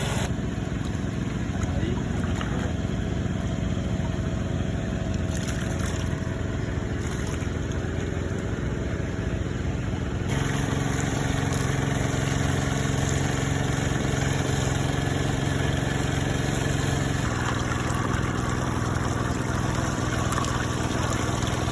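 Small Robin engine running steadily, as used to drive gold-mining equipment, with water running. Its tone shifts about ten seconds in and again a few seconds before the end.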